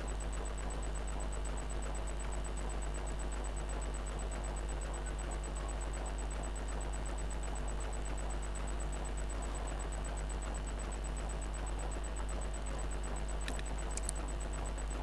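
Steady low hum of a computer power supply switched on and running under a dummy load, with a faint high whine throughout and two light clicks near the end.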